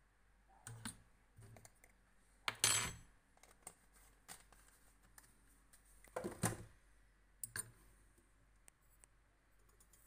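Scattered light clicks and clinks from handling a metal spoon and a small brass balance scale while weighing out shotgun powder, with two louder rattling handling noises about two and a half and six seconds in.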